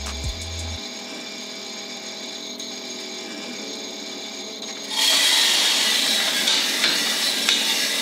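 Drum coffee roaster running steadily, then about five seconds in a loud rushing rattle starts and keeps going as the green coffee beans drop from the hopper into the hot drum and tumble: the roaster being charged at the start of a roast.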